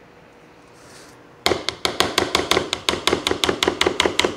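A spoon knocking rapidly against the side of a bowl as hot cereal and peanut butter are stirred, about six clicks a second, starting about a second and a half in.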